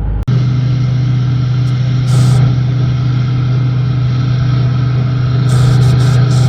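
Vehicle engine running steadily with a deep, even hum, with short bursts of high hiss about two seconds in and again near the end.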